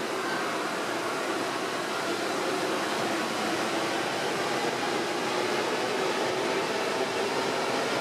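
Rubber-tyred Paris Métro Line 1 train running through a tunnel, heard from inside the front car as a steady, even rumble and hiss.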